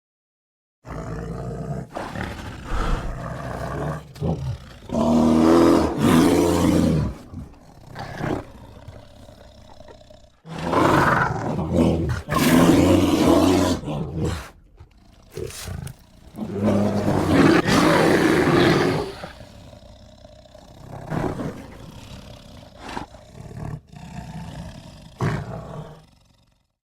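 Bear growling and roaring: rough, low growls broken by three long, loud roars, about five, eleven and seventeen seconds in.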